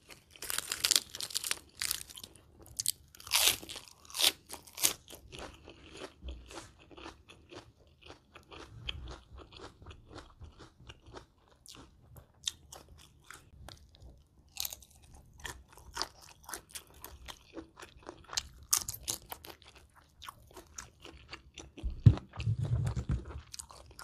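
Close-miked crunching and chewing of crisp lettuce leaf and shrimp salad: dense sharp crunches, loudest in the first few seconds, then softer, quicker chewing clicks. A sharp low thump about two seconds before the end.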